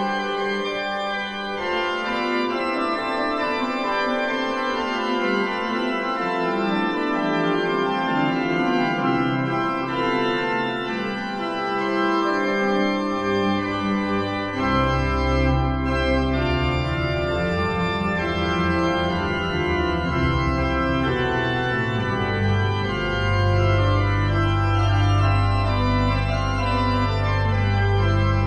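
Pipe organ music played on a Hauptwerk virtual pipe organ: several sustained voices moving together. Deep pedal bass notes come in about halfway through and grow heavier and held near the end.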